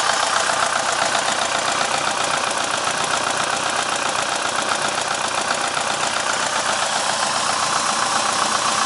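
Ford Scorpio's OHC four-cylinder engine idling steadily with a fast, even knocking. This is the engine knock the owner is recording as a fault; its cause is not given.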